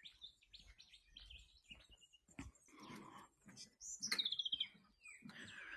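Wild birds chirping in bushland. About four seconds in, one bird sings a quick run of notes that fall in pitch.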